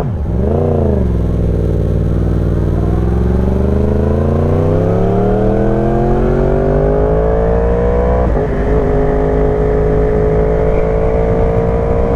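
Yamaha R1 crossplane inline-four with an aftermarket exhaust: a quick rev blip, then a long pull up through the revs, a gear change about eight seconds in, and steady running in the higher gear.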